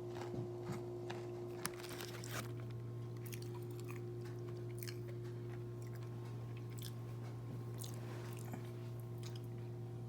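A person biting and chewing crunchy food close to the microphone, with crunches thickest in the first couple of seconds and scattered after, over a steady low hum.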